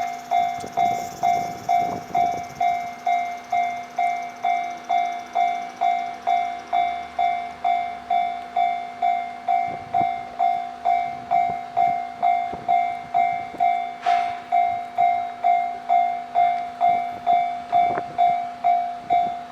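Japanese level-crossing alarm bell ringing at a steady beat of about two strikes a second. Under it a train passes, its wheels clacking over the rail joints.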